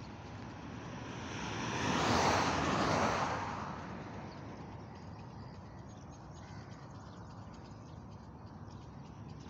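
A vehicle passing at motorway speed: tyre and engine noise swells, is loudest about two to three seconds in, then fades into a steady distant traffic hum.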